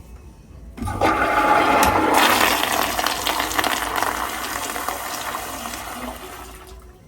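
Toto toilet flushing. The rush of water starts suddenly about a second in, is loudest for the next couple of seconds, then slowly dies away as the bowl drains.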